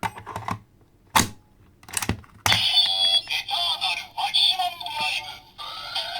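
A few sharp plastic clicks as a Kamen Rider W Double Driver toy and a Gaia Memory are handled. About two and a half seconds in, the toy's electronic jingle starts and plays on loudly through its small speaker.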